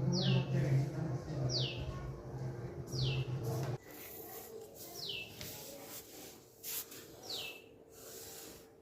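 A bird calling five times, each call a short whistle falling steeply in pitch, one to two seconds apart. A low steady hum stops about four seconds in.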